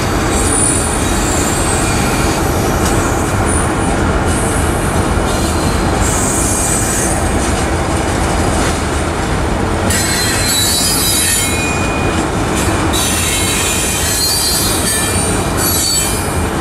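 Freight train tank cars rolling past close by: a steady rumble and clatter of steel wheels on the rails, with high-pitched wheel squeal that comes and goes, strongest from about ten seconds in.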